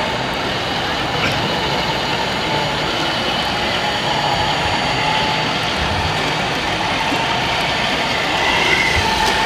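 Large-scale radio-controlled truck running as it drives slowly, a steady mechanical drone over the noise of a busy hall.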